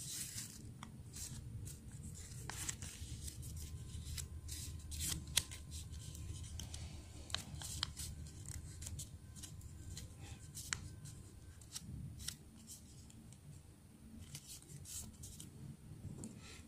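A sheet of origami paper being handled and folded by hand: repeated crisp rustles and creasing clicks, over a low steady hum.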